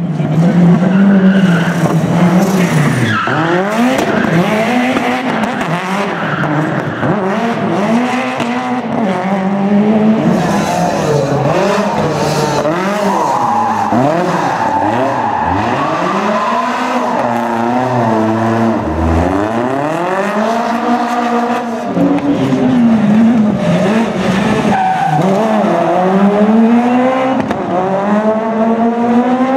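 Rally car engine revving hard, its pitch climbing and dropping again and again, with tyre squeal from drifting and burnouts.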